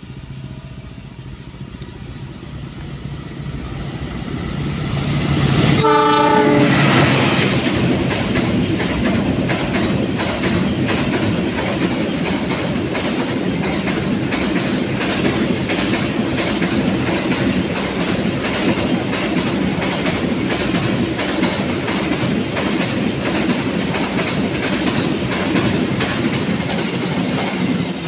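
A diesel-hauled container freight train approaches, growing louder, and gives one short horn blast about six seconds in. Its container flat wagons then pass close by with a steady clatter of wheels over the rails.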